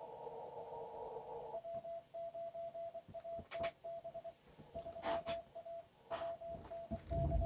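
Morse code (CW) from an ICOM IC-7200 ham transceiver's speaker. Narrow-filtered receiver hiss carries a faint tone, then about a second and a half in the hiss drops out and a clean single-pitch tone keys on and off in dots and dashes. A few sharp clicks fall among the keyed tone.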